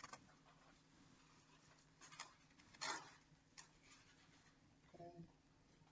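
Faint rustling and scratching of a blood pressure cuff being wrapped around an arm, with a louder scratch about three seconds in. A brief pitched sound comes near the end.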